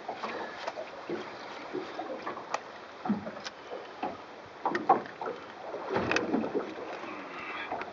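Handling noises at close range from unhooking a small common dentex from a jig: irregular clicks and knocks of the hooks and fishing line, with cloth rustling, the sharpest knock near the middle.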